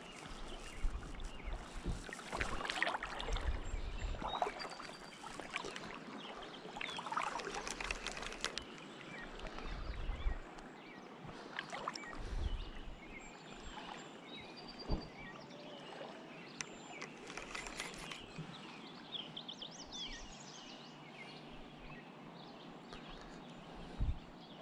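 Water splashing and sloshing irregularly, with scattered clicks and knocks and a few faint, short, high bird chirps.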